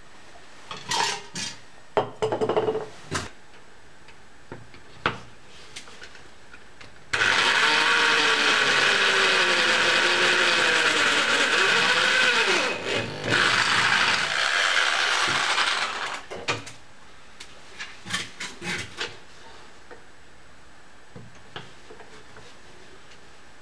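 Electric drill boring a hole through the metal wall of a Swiss Volcano stove. It runs for about nine seconds, its motor pitch dipping and rising under load. Clicks and knocks from handling the stove come before and after.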